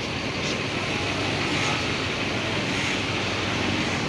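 Bus engine running steadily, with a constant hiss over a low drone.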